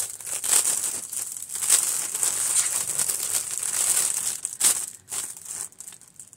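Clear cellophane bag crinkling and crackling as it is handled and opened, dying away about five seconds in.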